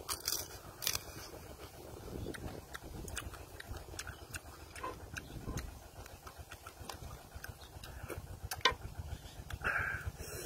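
Crunching and cracking of cooked crab shell being bitten and chewed, with sharp clicks in the first second and scattered ones after.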